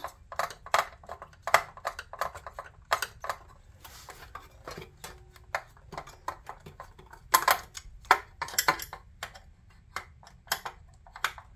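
Irregular small metallic clicks and knocks of hand tools and parts against the magnesium chassis of a Philips IntelliVue MP50 patient monitor as its fasteners are worked loose by hand, with a louder cluster a little past halfway.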